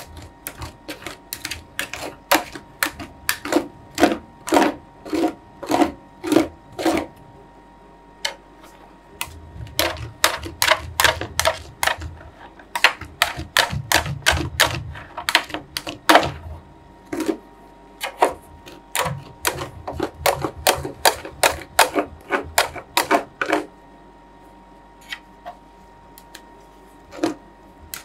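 Metal spatulas tapping and scraping on the steel freezing plate of an Ultratec ICR 2450 roll-ice-cream machine while the frozen ice cream layer is spread flat: quick runs of sharp clicks, several a second, broken by short pauses and thinning out near the end.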